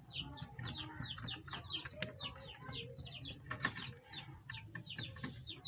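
Small birds chirping steadily in the background: short, high, falling chirps, several a second, with a couple of sharp clicks.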